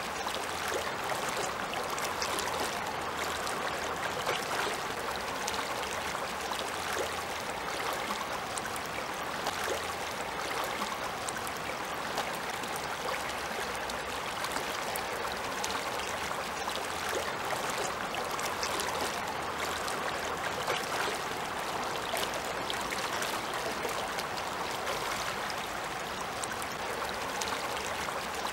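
Shallow river running over a stony bed: a steady rush of water, with fine splashing over the stones.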